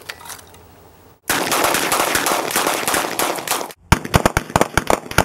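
Rapid gunfire: a dense stretch of overlapping shots, then after a brief break a quick string of separate sharp gunshots, about four a second.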